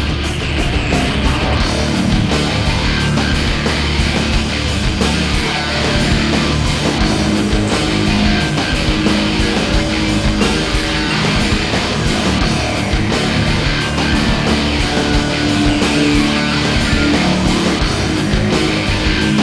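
Heavy rock music with distorted electric guitar and a steady driving beat.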